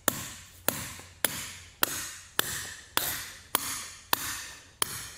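Hammer driving a half-inch wedge anchor into concrete by striking a sacrificial bolt threaded onto the anchor. Nine steady blows, a little under two a second, each with a short ring.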